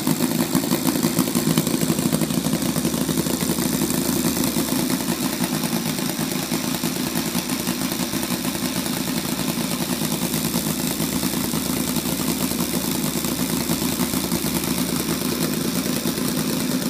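Saito FA-90R3 three-cylinder radial four-stroke glow engine running steadily at a fast idle, its propeller turning, easing slightly in level a few seconds in.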